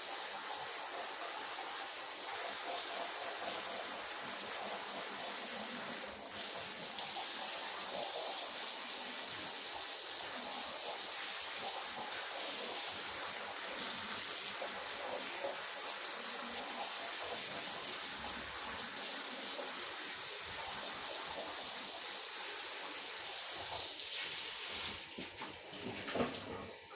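Rotary floor polisher scrubbing wet, soapy carpet: a steady wet hiss. It dips briefly about six seconds in and dies away near the end.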